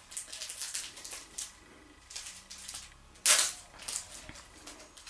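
Trading card packaging being opened by hand: crinkling, rustling wrapper noises, with one loud, sharp rip about three seconds in.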